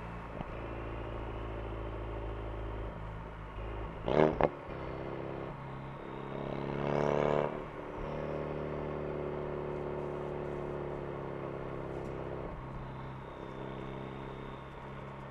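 Ford Focus RS engine and exhaust heard from inside the car, running steadily on the road. There are two sharp bangs about four seconds in, and the revs rise briefly around seven seconds before settling back.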